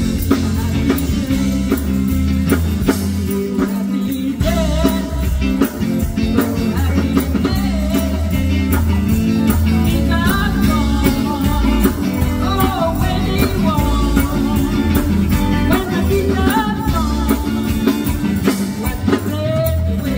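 Live band playing electric guitars over a steady drum-kit beat, with a woman singing into a microphone.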